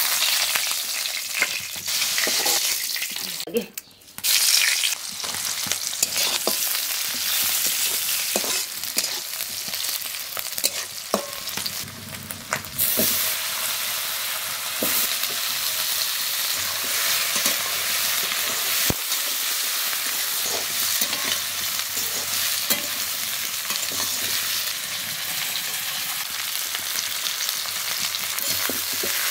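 Hot oil sizzling in a steel wok as small snakehead fish pieces, then potato chunks, fry and are turned with a spatula, which clicks and scrapes against the pan. The sizzling drops out briefly about four seconds in.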